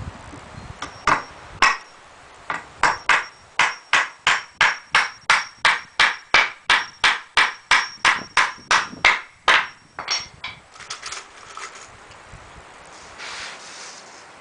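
Hammer driving a nail into pallet wood: two blows, then a steady run of about twenty blows at about three a second, ending in a few lighter taps.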